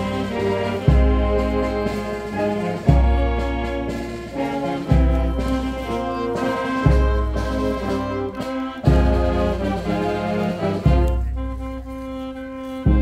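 Slow instrumental music led by brass, with held chords over a deep low note struck about every two seconds.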